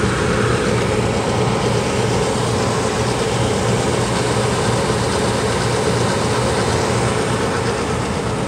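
Carrier gas furnace running: a steady mechanical hum with a rush of air, holding constant throughout.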